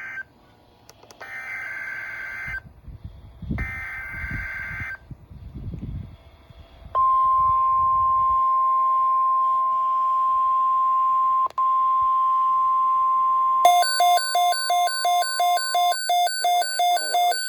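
Emergency Alert System weather-radio signalling: three short screechy bursts of digital data (the SAME header), then from about seven seconds in a steady single-pitch NOAA Weather Radio warning tone near 1050 Hz. About six seconds later a pulsing electronic alarm starts beeping rapidly over it, and the steady tone stops shortly after.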